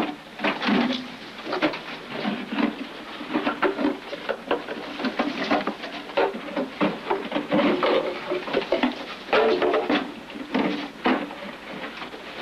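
Farmed mink in wire-mesh cages: a busy, irregular run of clicks and rattles of the cage wire, mixed with short animal calls.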